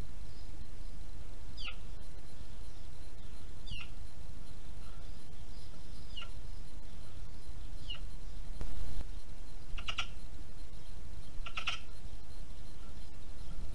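Eurasian magpies calling: short falling chirps every couple of seconds, then two louder, harsh calls near the end, over a steady low hiss. A brief low rumble comes about two-thirds of the way through.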